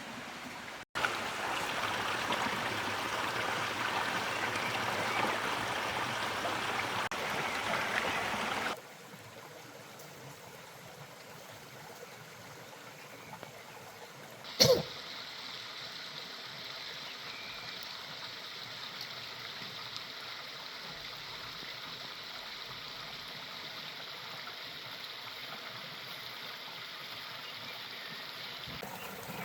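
Flowing stream water, rushing louder for the first several seconds, then dropping abruptly to a fainter steady flow. A single sharp knock comes about halfway through.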